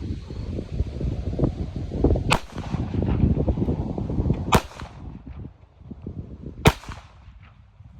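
Three shots from a Ruger LCP .380 pocket pistol, about two seconds apart.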